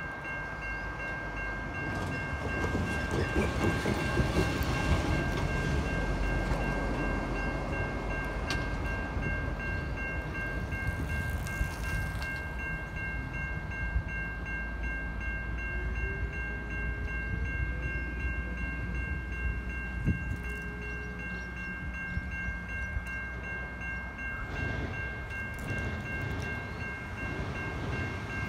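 Safetran Type 3 electronic level-crossing bell switching on and ringing continuously as the crossing activates, over a low rumble of road traffic. A train draws near at the very end.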